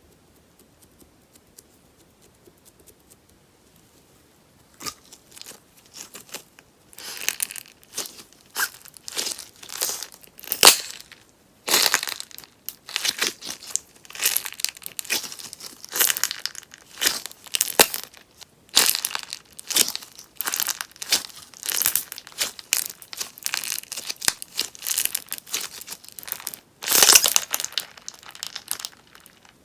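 Sponge slime, slime with bits of sponge mixed in, crackling and popping as it is worked. The crackles come in repeated bursts about once a second, starting about five seconds in.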